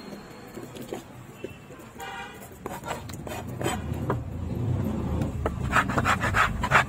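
A short horn toot about two seconds in and a motor vehicle engine rising in the background, then near the end a quick run of sharp scraping strokes as a hand tool is dragged over a small tuna on a wooden chopping block.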